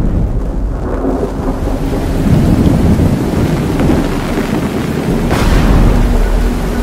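Thunderstorm: heavy rain falling steadily with rolling thunder, a deep rumble swelling two to three seconds in and a sharp crack of thunder a little after five seconds.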